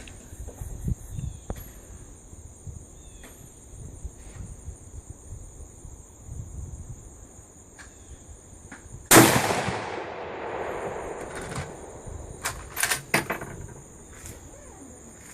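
A single rifle shot from a Mossberg MVP Varmint bolt-action rifle in 7.62×51mm NATO/.308 Winchester, about nine seconds in, with a long echoing tail. Light clicks come before it, and a few sharp clicks follow a few seconds later.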